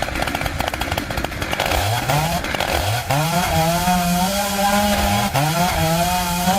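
Chainsaw engine running rough and low at first, then revved sharply up to full speed three times, about two, three and five seconds in, holding a steady high pitch between the revs.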